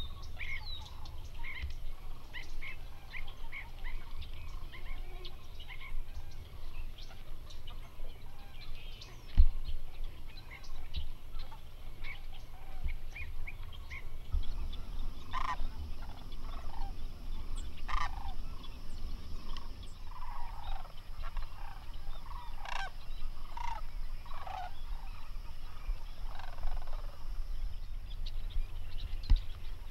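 Wild bird calls over a steady low rumble. Many short, high calls fill the first half. From about halfway, louder rolling calls of a flock of sandhill cranes repeat, several every few seconds.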